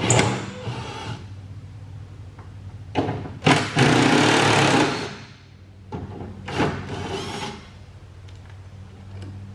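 Cordless impact driver with a 12 mm socket hammering at bolts on a tractor's back panel, in several bursts with the longest, about a second and a half, near the middle.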